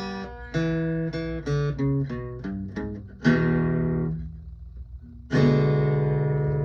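Acoustic guitar playing the song's closing bars: a run of single picked notes, a strummed chord about three seconds in that dies away, then a final chord near the end left ringing.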